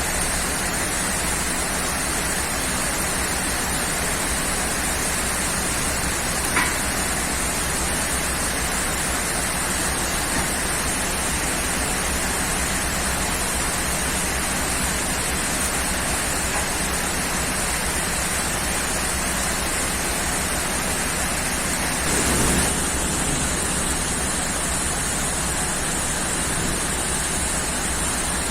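Steady heavy rain. A sharp crack comes about seven seconds in, and a short low swell about twenty-two seconds in.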